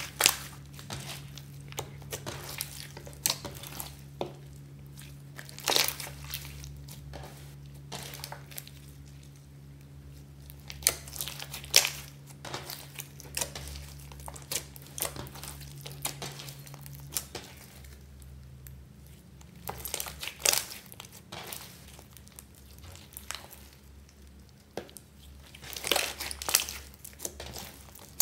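Hands kneading and squeezing clear glitter slime packed with small foam beads: irregular sticky crackling and popping as the slime is pressed and pulled, with louder bursts of crackles every few seconds.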